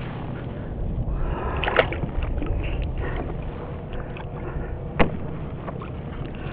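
Water sloshing against a kayak hull under a steady low wind rumble on the microphone, with two sharp knocks, about two seconds in and again about five seconds in.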